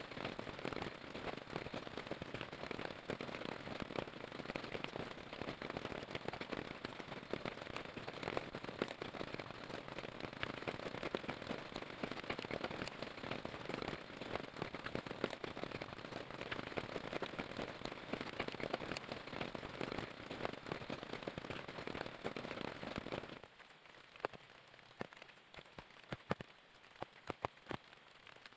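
Heavy rain pattering densely and steadily on a tent's fabric, heard from inside the tent. About 23 seconds in it cuts to a much quieter background with a few sharp, scattered pops from a small campfire crackling.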